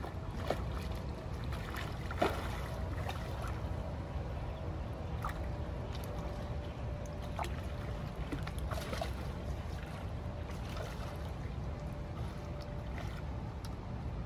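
Low wind rumble on the microphone with scattered splashes in shallow water as a hooked blue catfish thrashes and is grabbed by hand.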